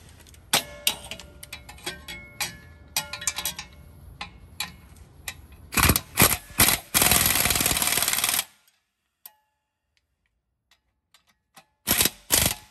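Metal clinking and light ringing of a socket, extension and bolts being handled, then a ratchet clicking rapidly for a couple of seconds as the exhaust manifold support bolts are run in. Two more short bursts of ratchet clicking come near the end.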